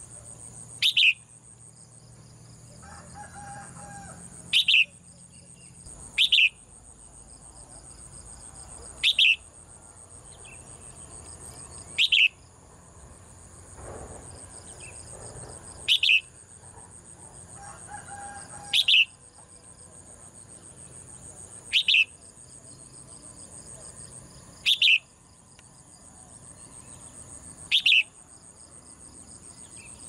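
A caged red-whiskered bulbul gives short, sharp chirping calls, one about every three seconds, ten in all. A steady high insect drone runs underneath.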